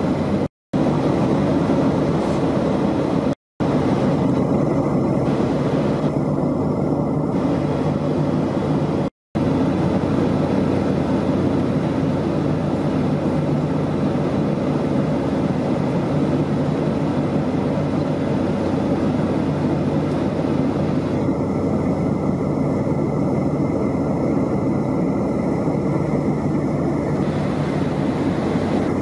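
Steady cabin noise inside a Boeing 757 in flight: the hum of its two Rolls-Royce RB211 engines and the rush of air along the fuselage. Three brief silent gaps break it in the first ten seconds.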